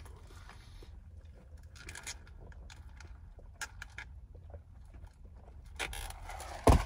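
Lemonade being sipped through a straw from a lidded plastic fast-food cup, with faint clicks and rustles of the cup and straw over a steady low rumble. There is a single loud knock near the end.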